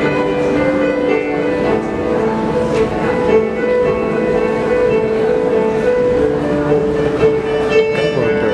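A school choir singing in several parts, holding long sustained chords with the voices shifting pitch between them.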